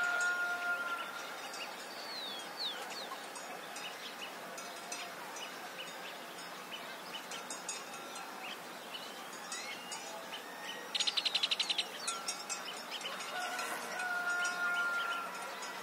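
Rural farmyard ambience: small birds chirping and twittering throughout, with a rooster crowing at a distance at the start and again near the end. About eleven seconds in, a short, rapid pulsing trill stands out as the loudest sound.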